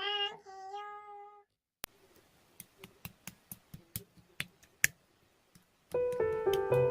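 A short, high-pitched two-part call with a steady held pitch, then a scatter of sharp single clicks, and piano music begins near the end.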